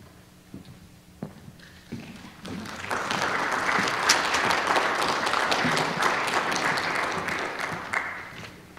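Audience applauding, swelling in about two and a half seconds in and dying away near the end; a few scattered knocks before it starts.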